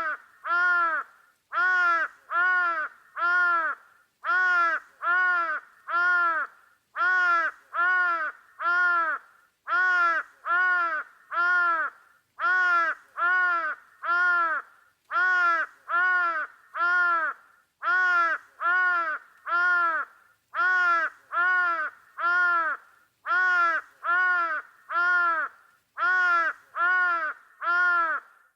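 A bird calling over and over, each call a short arched note, in groups of about three separated by short pauses, at a very even pace.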